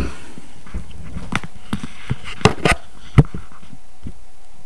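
Scattered sharp clicks and taps with light rustling from hands handling a cardboard trading-card box.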